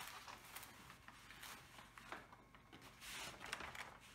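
Faint rustling and light scraping as a large diamond-painting canvas and its release paper are handled and smoothed, with a denser rustle about three seconds in.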